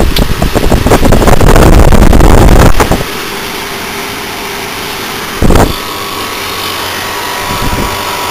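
1-ton AMCOR window air conditioner running. For about the first three seconds a loud rush of air buffets the microphone. Then it settles to a steady hum, with a single knock about five and a half seconds in.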